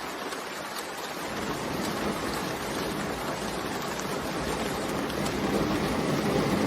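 Steady rain noise, an even hiss with no separate drops standing out. A deeper rumbling layer comes in about a second in and grows louder near the end.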